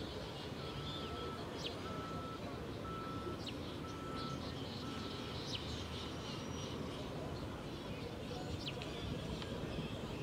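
Outdoor ambience: birds giving short, sharp chirps now and then over a steady low rumble. Five short beeps of one steady pitch sound at even spacing in the first half.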